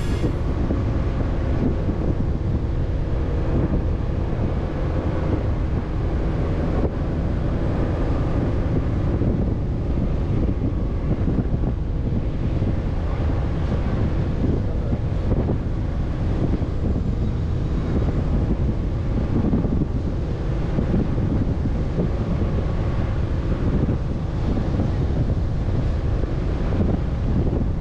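Wind buffeting the microphone of a camera mounted outside on a Chevrolet Colorado ZR2 Bison, over the steady low rumble of the truck driving slowly across soft beach sand.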